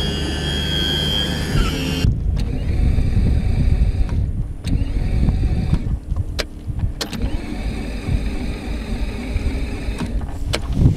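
Mercury 150 outboard's electric starter cranking the engine in several goes without it catching, because the kill-switch lanyard is not in. A high steady beep sounds in the first second or so.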